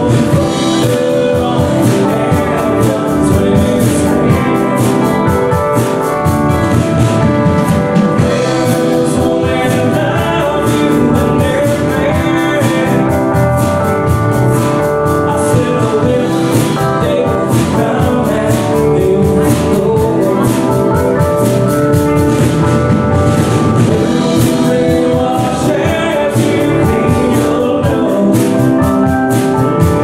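Live band playing a song on electric guitars, bass guitar, keyboard and drum kit, with sung vocals over it.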